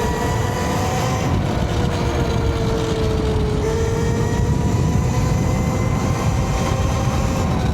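Electric motor of a YOZMA IN10 Pro e-moto pulling uphill: a steady whine with a few overtones that drifts slightly in pitch. Heavy wind rumble on the microphone from riding runs underneath it.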